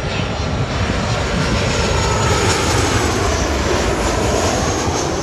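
Boeing 737-800 freighter's CFM56 turbofan jet engines on landing approach, passing low overhead: a loud jet rumble that swells to a peak midway and eases near the end, with a fan whine that drops slightly in pitch as it goes past.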